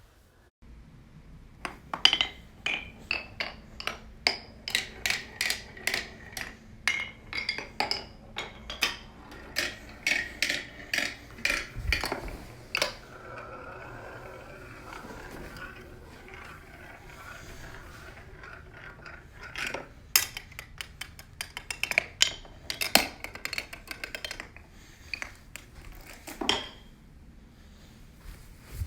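Marbles running down a marble run track: a string of sharp clacks and clinks, roughly two a second, as they drop from piece to piece. Near the middle this gives way to a steady rolling whir for several seconds, then more clacks near the end.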